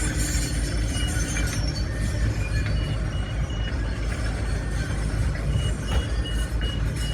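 A heavy demolition machine's diesel engine running with a steady rumble. Its high warning beeper sounds in runs of short beeps, about three a second, near the start, in the middle and again near the end.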